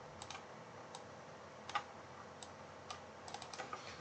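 Faint computer mouse and keyboard clicks: a few single clicks spread out, then a quicker run of clicks near the end.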